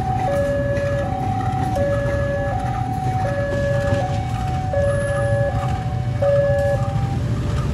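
Level-crossing warning alarm sounding a steady two-tone signal, a higher and a lower tone alternating about every three-quarters of a second. Under it runs the low rumble of an approaching diesel locomotive hauling a passenger train.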